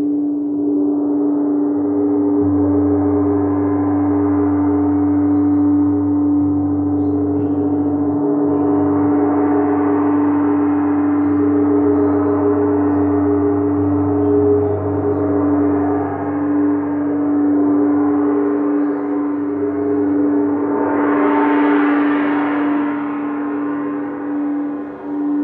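Crystal singing bowls played with a mallet, ringing together in long sustained tones. One strong steady tone is held throughout, a lower hum joins about two seconds in, and the sound swells brighter near the end.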